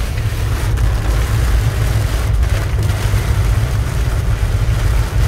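Heavy downpour drumming on a car's roof and windshield, heard from inside the cabin: a steady deep rumble under an even hiss.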